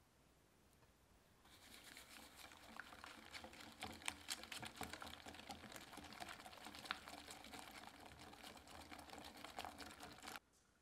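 Wire whisk beating egg whites with sugar and honey in a glass bowl: quick, dense clicking of the wires against the glass in the wet mix, starting about a second and a half in and stopping abruptly near the end.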